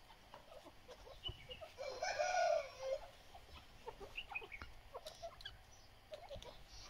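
Grey francolin (teetar) giving one loud call just under a second long, about two seconds in, with faint short chips and ticks scattered around it.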